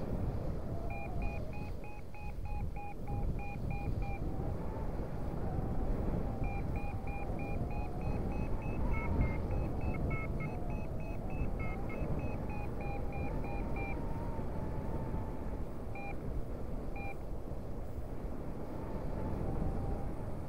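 Paragliding variometer beeping in quick, evenly spaced pips, about four a second, in two long runs with a gap between and a couple of lone beeps near the end: the climb tone, signalling that the glider is rising in lift. Wind rushes on the microphone throughout.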